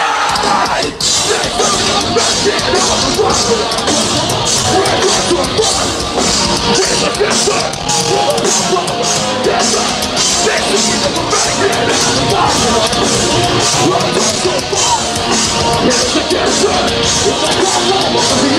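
Heavy rock music with a fast, steady drumbeat and yelled vocals.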